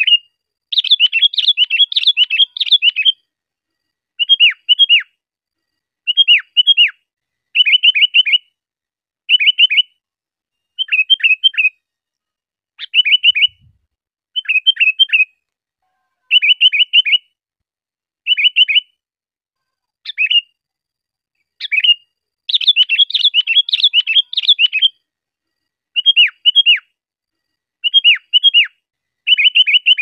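Sooty-headed bulbul (kutilang) singing: short phrases of quick, down-slurred notes repeated every second or two, with two longer rapid runs, one near the start and one about three-quarters of the way in.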